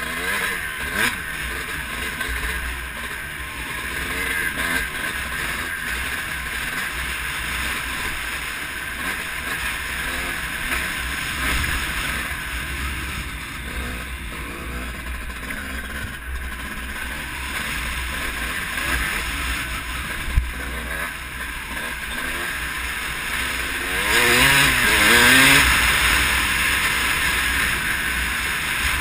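2005 Honda CR250R two-stroke single-cylinder engine running under the rider while the bike is ridden over dirt, with steady wind rush across the camera microphone. There is one sharp knock partway through, and the engine revs up and down louder near the end.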